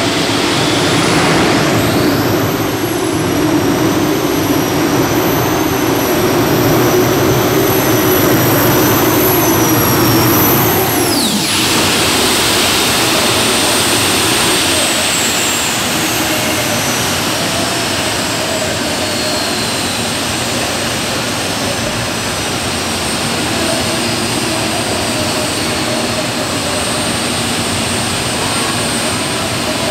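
Unlimited-class pulling tractor's engines running: a high whine climbs about two seconds in and holds, wavering slightly, for several seconds. It drops sharply about eleven seconds in, then a fainter whine winds down slowly, all over a steady, heavy roar.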